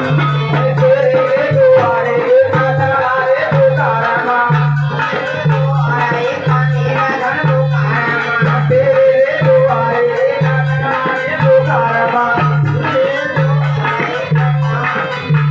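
Hindi devotional bhajan music: hand percussion over a steady, repeating bass beat and a melodic line.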